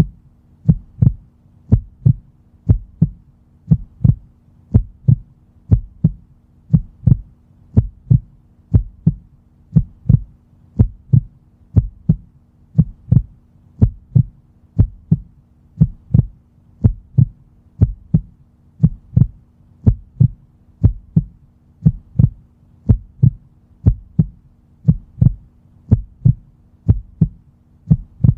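Heartbeat sound effect: steady double thumps (lub-dub), about one beat a second.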